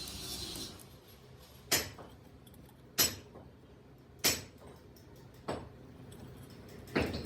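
Five sharp metallic strikes, evenly spaced about 1.3 seconds apart, each with a short ring: a hammer striking metal work on the drive shaft. A steady noise fades out within the first second.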